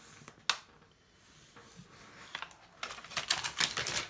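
Handling noise from a large plastic-covered canvas being moved on a table: a sharp click about half a second in, then a quick run of crinkles and clicks near the end.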